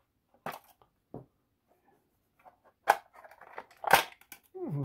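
Fingers handling a clear plastic compartment box, making sharp clicks and taps on the plastic with light crackling as sticky tape is picked off it. The sharpest clicks come about three and four seconds in.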